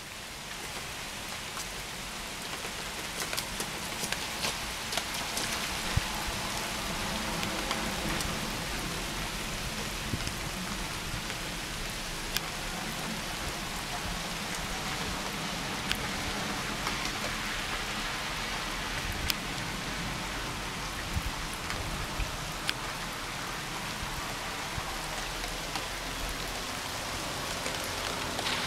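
Steady rain falling, a constant hiss with scattered sharper clicks of single drops hitting close by.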